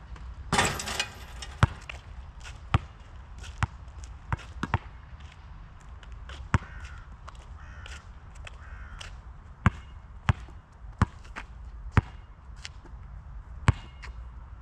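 A Molten GB3800 basketball hits the hoop with a rattling clang about half a second in. It then bounces on the asphalt court several times, each bounce coming sooner than the last as it settles. Later it is dribbled, about five bounces a little over half a second apart.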